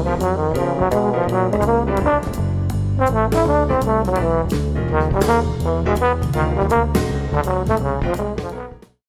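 Background music: an upbeat brass band jazz tune with trombone and trumpet over a steady beat, fading out near the end.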